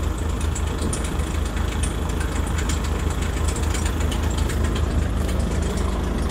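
An engine idling steadily, a low even throb with light scattered ticks above it.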